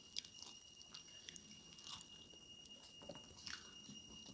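Faint close-up eating sounds: chewing and biting smoked duck meat, with scattered small wet mouth clicks and soft crackles.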